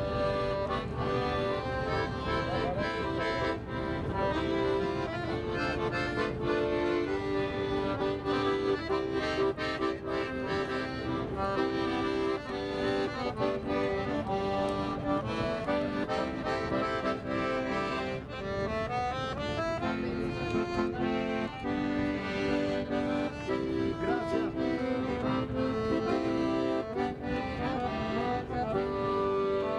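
Piano accordion playing a tune live: a melody over held chords, with bellows-sustained notes and a pitch run climbing about two-thirds of the way through. A steady low rumble lies underneath.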